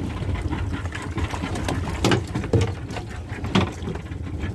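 75 hp outboard motor running at idle, a steady low hum, while a hooked fish is brought alongside. A few short sharp noises stand out over it, about two and three and a half seconds in.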